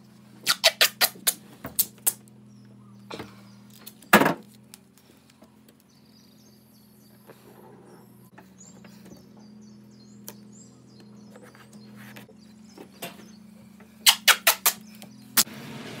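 Black Gorilla tape being pulled off the roll in quick jerks: two runs of loud, rapid ripping crackles, one near the start and one near the end, with a single louder rip about four seconds in. A steady low hum runs underneath.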